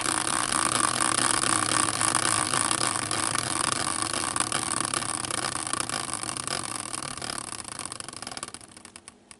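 A caster wheel used as a spinning prize wheel whirs on its axle after a hand spin. It slows steadily, breaks into a few separate ticks and stops about nine seconds in.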